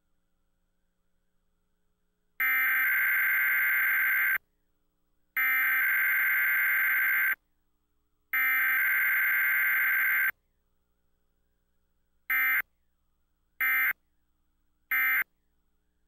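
Emergency Alert System SAME data tones for a Required Weekly Test, coming over a cable TV feed. About two seconds in, three identical buzzy header bursts of about two seconds each sound a second apart. Near the end come three short end-of-message bursts.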